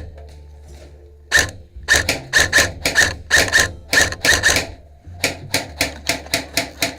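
Airsoft rifle firing quick semi-automatic shots, sharp cracks first in uneven pairs, then a steadier run of about four to five shots a second from about five seconds in.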